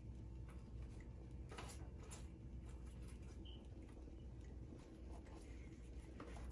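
Faint light ticks and scratches of a basting brush spreading oil over the crisp skin of a roast pork leg lechon, over a low steady hum.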